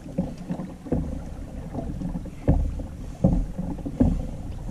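Hobie Outback kayak under way on open sea: water slapping against the hull with a few low knocks, over wind rumble on the microphone.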